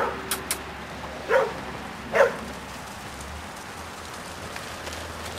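A flock of sheep running over bare dirt, their hooves making an even rustling noise, with three short calls in the first two and a half seconds.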